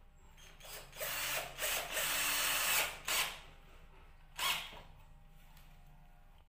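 Power drill running in short bursts: one run of about two seconds, then two brief bursts.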